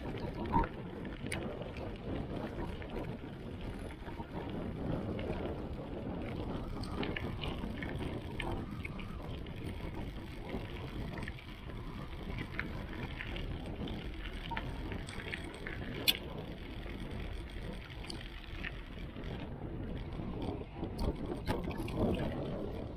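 Riding a bicycle: steady rumbling noise of the ride with wind on the microphone, and a few sharp clicks or rattles, one about half a second in and another about sixteen seconds in.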